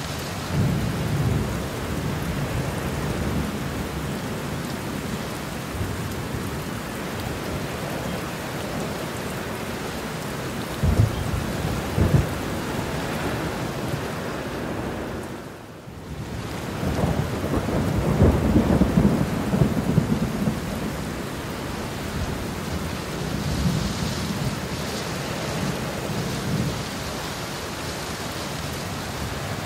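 Steady heavy rain with rolling thunder: low rumbles, two sharp low claps shortly before the middle, and a long, loud rumble just past the middle. The rain briefly fades down and swells back in just before that long rumble.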